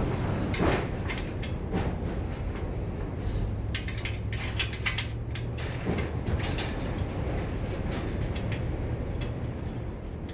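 Scattered metal clicks and clinks of hand tools and bicycle parts being handled during a teardown, with a cluster of them about four to five seconds in, over a steady low hum.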